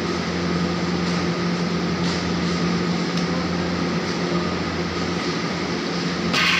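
Steady mechanical hum and whir of a running machine, even and unchanging, with a short louder hiss near the end.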